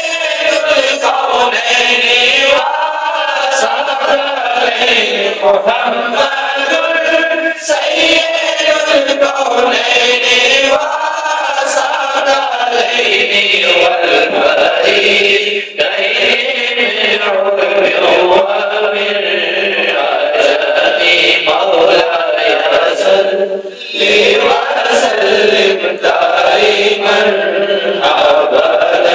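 A man singing a hamd, an Islamic devotional hymn, solo into a microphone: long held notes that bend up and down in a chanted melody, with short breaks for breath between phrases.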